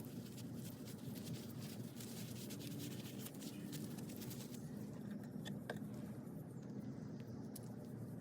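Rapid scratching and scrubbing strokes, as of a brush working over brake parts. They ease off about halfway through, leaving a few light clicks.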